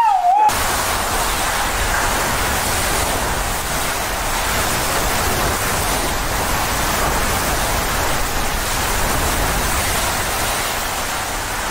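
Hurricane-force wind and driving rain, a loud, steady rush of noise with a low rumble beneath it.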